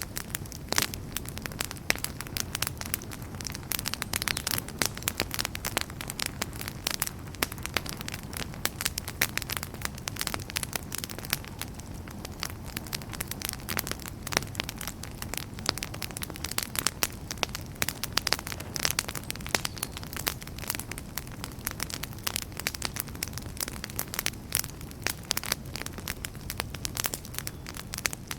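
Wood campfire burning with constant dense crackling and popping, sharp snaps scattered over a steady low rush of the flames.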